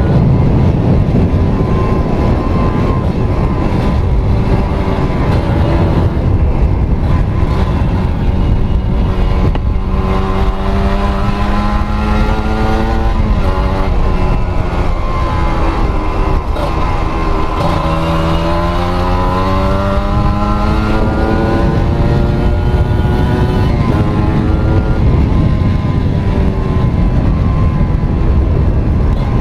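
Kawasaki Ninja RR's 150 cc single-cylinder two-stroke engine, fitted with a Mikuni VM28 carburettor, running loudly. Twice the revs climb steadily for a few seconds and then fall back, about ten seconds in and again past the middle.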